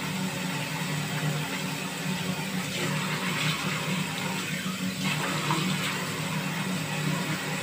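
Bathroom sink tap running steadily while a man splashes water on his face with his hands, with a steady low hum underneath.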